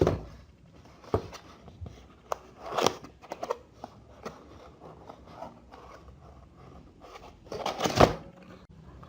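Cardboard box being opened by hand: scattered knocks and scrapes of the cardboard flaps and packaging, with the loudest bumps about eight seconds in.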